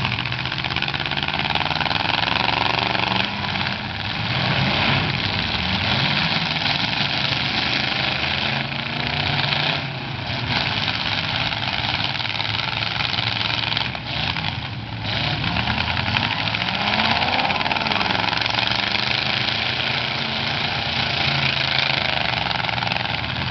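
Several demolition derby cars' open-exhaust engines revving hard at once, their pitch rising and falling over and over as the cars push and ram one another.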